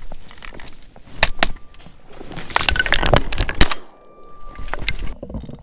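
Dry tumbleweeds and brush crackling and snapping as a hunter shifts in the blind and brings his shotgun up, with a dense burst of crackling in the middle, loudest about three and a half seconds in.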